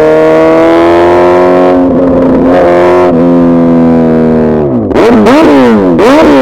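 Suzuki Hayabusa Gen3's inline-four engine running at a steady, slowly rising pitch for about four seconds, then revving quickly up and down several times near the end.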